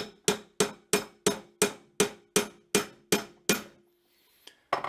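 Wooden mallet tapping the bread-maker pan's paddle-shaft and bearing assembly into its seat in the pan: about a dozen light, even taps, roughly three a second, with a faint ring after each. They stop about three and a half seconds in, and two or three more taps come near the end.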